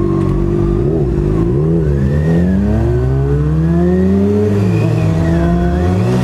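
Honda CBR600 F4i inline-four sport-bike engine idling, then pulling away from a standstill with the revs climbing. The revs fall at an upshift about four and a half seconds in and climb again near the end.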